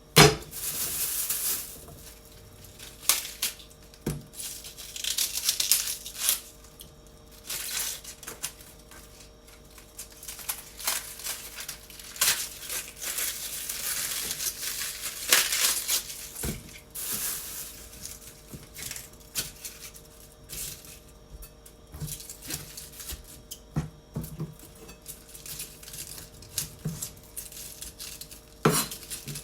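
Cabbage being handled and torn apart: stretches of crisp rustling and tearing, broken by scattered clicks and knocks on the worktop, with a loud knock at the start. A faint steady hum runs underneath.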